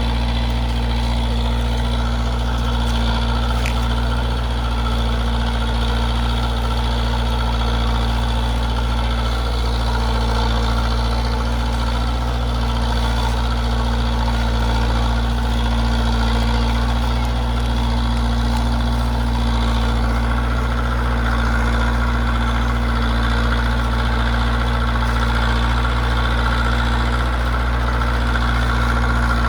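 Zetor 7045 tractor's four-cylinder diesel engine running steadily at constant speed while pulling a three-furrow plough.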